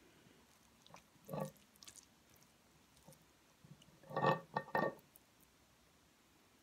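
Brief low vocal sounds from a person eating, once about a second in and twice in quick succession around four seconds in, the last pair the loudest.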